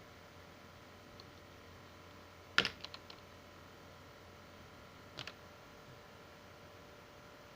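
Small plastic clicks from handling a tablet: one sharp click with three quicker, fainter ones right after it, then a close pair of clicks a few seconds later, over a faint steady hum.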